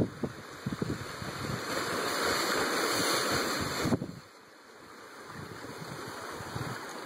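Surf washing into a narrow rocky cove: a wave's hissing wash builds over a couple of seconds, then drops away suddenly about four seconds in before a quieter wash slowly builds again. Wind buffets the microphone at the start.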